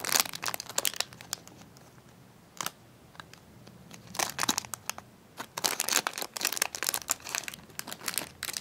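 Crinkling and rustling of a squishy toy being handled, in irregular bursts with quiet gaps, the busiest stretch from about four seconds in to near the end.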